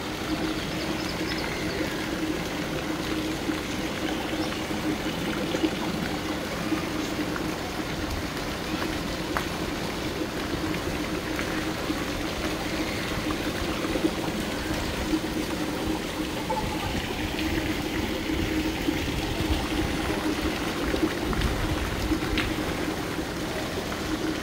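Steady splashing and trickling of water from fountain jets arcing out of artificial rocks and falling into a pool.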